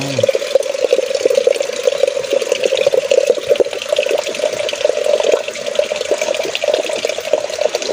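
A thin stream of spring water pouring steadily into a partly filled aluminium pot, splashing, with a hollow steady ring from the pot.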